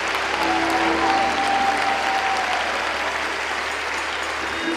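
A large church congregation applauding, with instrumental music underneath holding sustained notes and a low bass tone.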